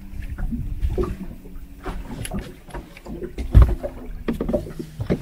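Handling noises in an inflatable PVC boat: scattered knocks, clicks and rubbing, with one heavy low thump about three and a half seconds in.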